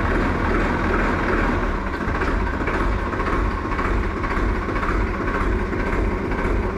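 Tractor engine running steadily, an engine sound effect laid over toy tractor footage.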